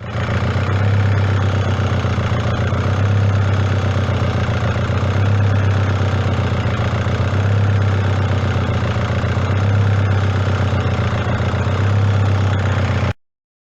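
VW Golf Mk5 1.9 TDI four-cylinder diesel engine idling steadily, with a low hum that swells gently about every two seconds; it cuts off abruptly near the end.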